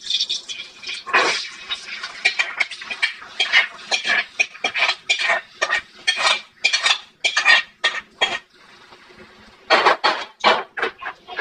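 Metal ladle and pot gripper clattering and scraping against aluminium pots as mashed boiled potato is scooped into a pan: a rapid run of clanks and scrapes that pauses for about a second near the end, then a few more.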